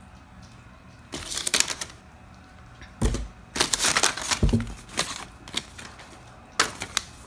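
Hands rummaging in a cardboard box, rustling and crinkling packing paper in several short bursts, with two dull knocks about three and four and a half seconds in.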